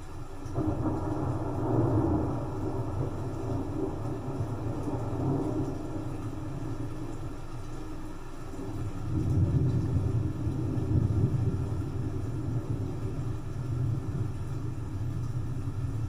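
Thunder rumbling low and long, swelling about half a second in and again around nine seconds, over a soft steady hiss of rain.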